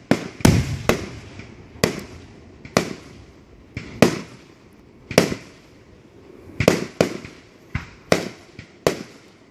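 Aerial fireworks bursting overhead: about a dozen sharp booms at uneven intervals, from a fraction of a second to about a second and a half apart, each trailing off in an echo.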